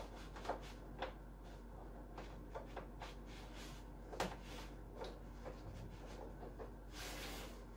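Faint scattered clicks, taps and rustling of a power cable being handled and plugged into the back of a wall-hung TV, with a brief rustle near the end.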